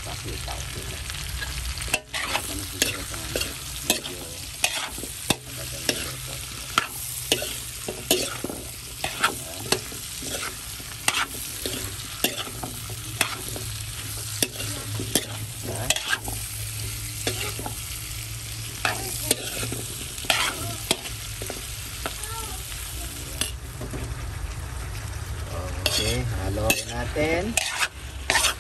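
Pork, string beans and squash sizzling in a wok, stirred and turned with a metal utensil, with frequent sharp clinks and scrapes of metal on the pan.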